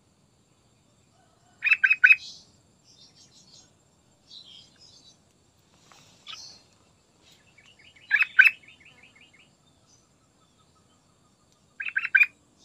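Yellow-vented bulbul singing: three short, loud phrases of quick notes, about two seconds in, about eight seconds in and near the end, with softer chattering and a fast run of ticking notes between them.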